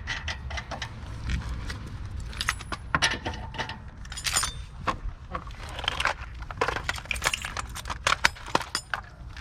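Small metal objects clinking and rattling as they are handled, in short irregular clusters over a low background hum.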